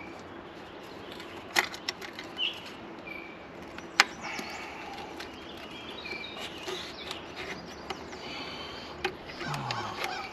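Outdoor background with a few faint bird chirps, broken by several sharp clicks and knocks. The loudest is a single sharp click about four seconds in.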